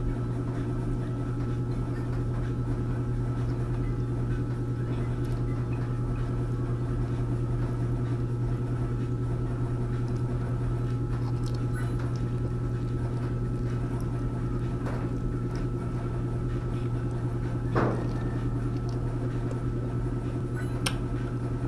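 A steady low hum, with faint clicks and taps of someone eating by hand from a plate. One louder knock comes about 18 seconds in, and a small click near the end.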